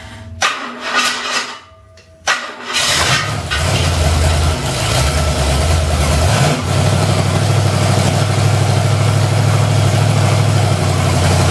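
A Ford V8 engine being cranked over by its starter, which screams because the wrong drive plate is fitted. It catches about two and a half seconds in and settles into a steady run, a first start after months of standing.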